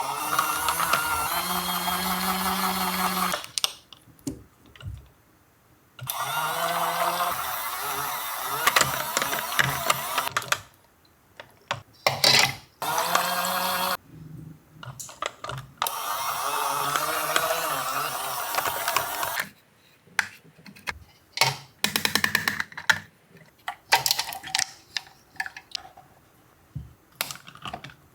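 Mini washing machine running in four bursts of a few seconds each, its small motor humming steadily as it churns makeup brushes in water, with pauses between runs. Scattered clicks and knocks over the last few seconds.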